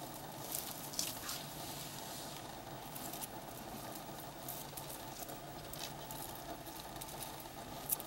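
African bush elephant feeding on bush: dry twigs and leaves crackle and rustle as it pulls at and chews the branches, with sharp snaps about a second in and again just before the end.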